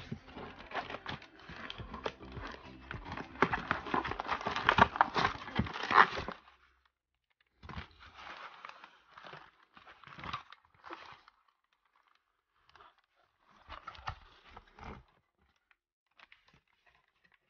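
Inflatable air-column plastic packaging crinkling and rustling as it is handled and pulled out of a cardboard box. The crinkling is continuous and loudest for about the first six seconds, then comes in a few shorter bursts with pauses between them.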